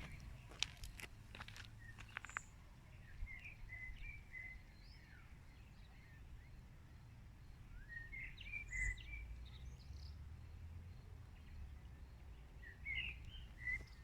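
Wild songbirds singing in short chirping phrases, in clusters a few seconds apart, over a low steady background rumble. A few sharp clicks come in the first couple of seconds.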